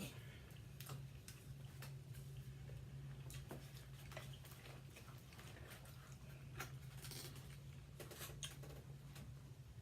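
Faint eating sounds: scattered small clicks and crackles of chewing and handling food, over a steady low hum.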